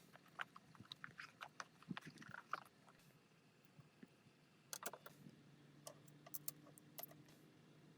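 Faint, scattered clicks and light taps, irregular, with a low steady hum coming in about five seconds in.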